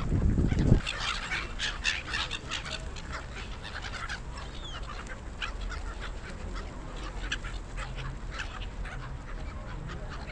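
A flock of gulls calling: many short cries overlapping one another, one drawn-out call about halfway through. A loud low rumble fills the first second.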